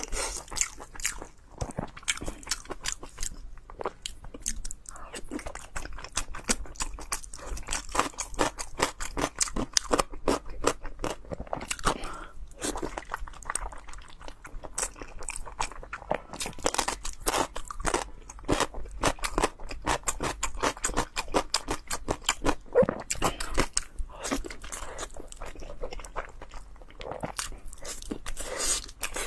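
Close-miked eating of beef tendon: rapid chewing with crisp crunching, a dense run of short clicks broken by a few brief pauses.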